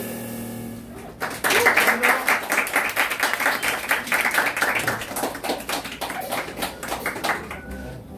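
Audience applauding at the end of a jazz tune: the band's last notes die away, then clapping starts about a second in and thins out near the end.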